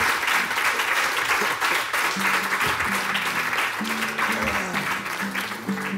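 Audience applauding. Background music comes in underneath about two seconds in.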